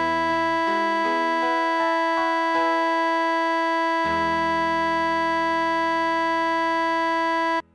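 Synthesized keyboard playing the closing bars of a hymn. A few melody notes step over a thinner chord, then the full chord returns and is held for several seconds before cutting off abruptly near the end.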